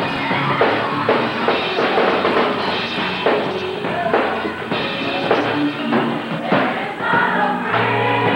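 Live gospel music: a choir singing over a band, with a drum kit keeping a steady beat.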